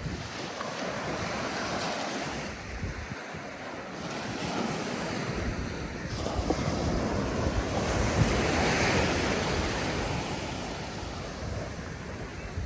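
Sea surf washing onto the shore, with wind buffeting the microphone; the wash swells about halfway through and eases off near the end.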